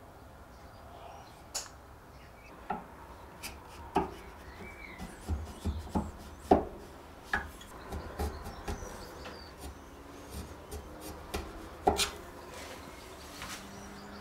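A string of irregular sharp taps and knocks of wood and brass being handled at a workbench, with a little rubbing between: a wooden saw handle and its brass saw back being worked on.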